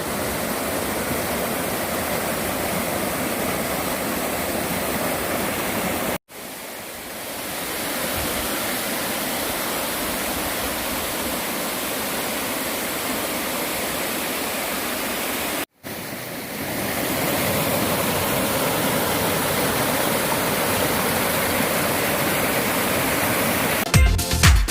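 Steady rush of water from a mountain valley stream, in three stretches split by two brief dropouts about 6 and 16 seconds in.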